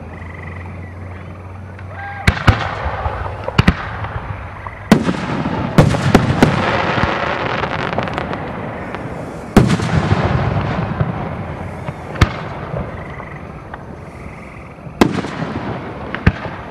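Aerial firework shells from a professional display going off: about ten sharp bangs starting about two seconds in, some in quick clusters, each trailing a rolling echo and crackle.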